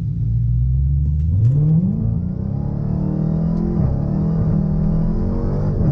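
Supercharged 6.2-litre Hemi V8 of a 2016 Dodge Challenger Hellcat heard from inside the cabin, its engine note rising about a second and a half in as the car accelerates, then holding steady with a brief dip in pitch near four seconds.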